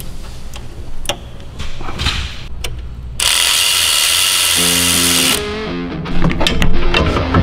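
A power tool runs steadily for about two seconds, a little over three seconds in. Background rock music with guitar plays throughout.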